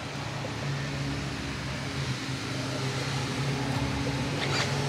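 Steady low mechanical hum of a running machine, with a short tap about four and a half seconds in.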